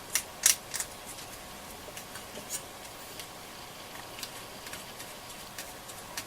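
Fiberglass pencil scratching over tarnished amplifier pins: light, irregular scratches and ticks, the loudest in the first second, then fainter ones scattered throughout.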